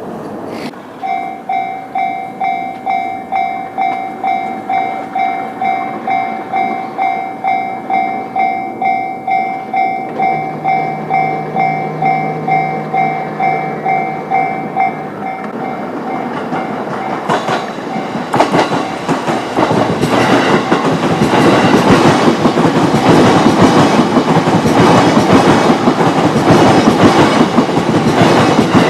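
Level-crossing warning bell ringing, an electronic tone pulsing about twice a second. About halfway through the bell fades, and a JR Itsukaichi Line train comes through the crossing, its wheels clattering over the rails and growing loud for the last ten seconds.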